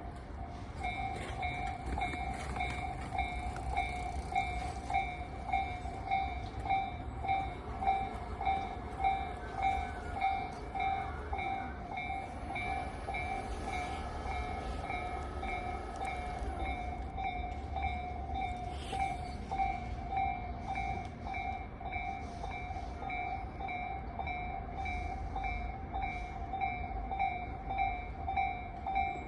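Japanese railway level-crossing alarm ringing, its electronic bell repeating steadily at about two strikes a second. Partway through, a train runs past, adding a rumble and a steady whine.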